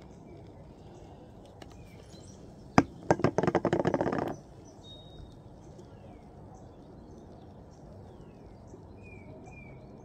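Faint outdoor background with birds chirping in short, high, falling calls. About three seconds in, a sharp knock is followed by a quick clattering rattle lasting about a second and a half, the loudest sound here.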